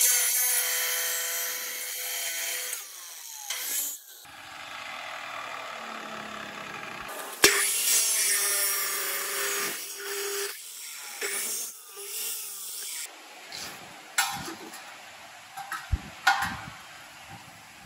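Abrasive cut-off chop saw grinding through rectangular steel tubing in two cuts: one at the start lasting about three seconds, the other starting suddenly about seven and a half seconds in and lasting about three seconds. Quieter running lies between the cuts, and a few sharp knocks of metal come near the end.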